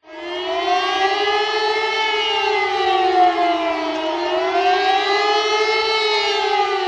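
A sustained siren-like tone with strong overtones, fading in at the start; its pitch sags slowly to a low point about four seconds in and climbs back again.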